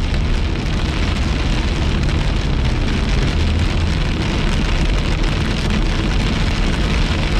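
Heavy rain hitting a moving car's windshield and roof, heard from inside the cabin over a steady low rumble of road and wind noise. The noise is loud and even, with no separate knocks or tones.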